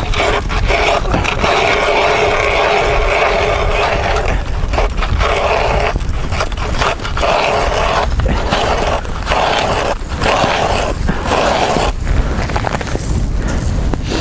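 A tool scraping on lake ice in strokes broken about once a second, over steady wind rumble on the microphone.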